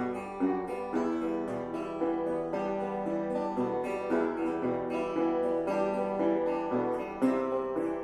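Background music on plucked acoustic string instruments, notes picked in a quick, steady run.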